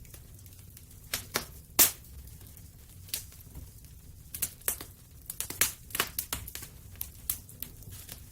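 Wood fire in a fireplace crackling, with irregular sharp pops and snaps over a low steady rumble of the flames; the snaps come thickest in the second half, and the loudest single pop is about two seconds in.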